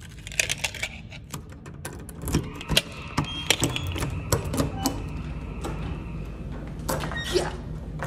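Keys rattling and clicking at a door's lever-handle lock as it is unlocked: a quick run of sharp metallic clicks, then a couple more about seven seconds in.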